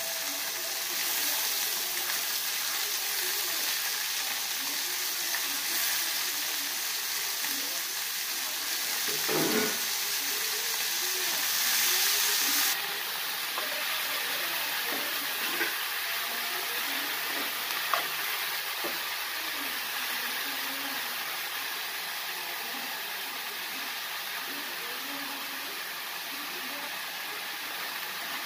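Chopped bitter gourd sizzling as it fries in an aluminium kadai, with a metal spoon stirring it and now and then clicking against the pan. The hiss is louder for about the first twelve seconds, then drops.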